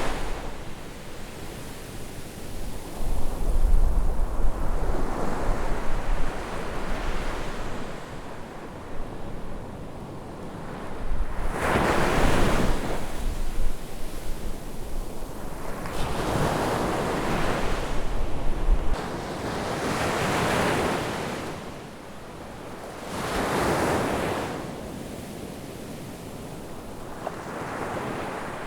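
Ocean waves breaking on a beach, the surf swelling and falling back every few seconds, with wind buffeting the microphone in the first half.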